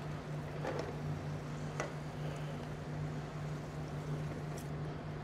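Stirring a pan of diced tomatoes and onions with a spatula: a few light scrapes and taps against the metal pan over a steady low hum.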